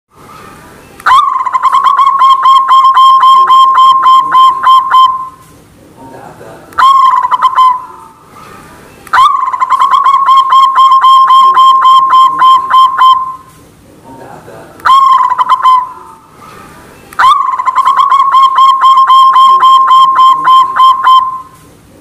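White zebra dove (perkutut) singing its cooing song: three long phrases of rapid, evenly pulsed notes, about four a second, each lasting four to five seconds, alternating with two short phrases of about a second.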